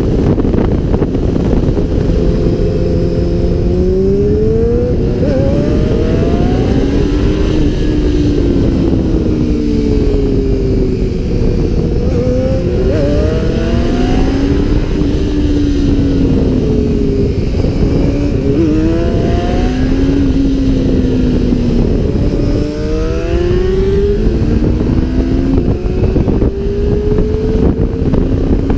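Honda motorcycle engine accelerating on the road, its pitch climbing and then dropping back at gear changes several times, under loud wind roar on the microphone.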